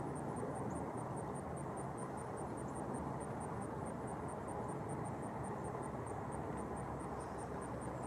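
Steady low outdoor background rumble, with a faint high ticking repeating evenly about five times a second.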